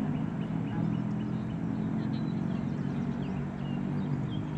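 Steady low drone of a Boeing 747-400 freighter's jet engines passing high overhead, with small birds chirping.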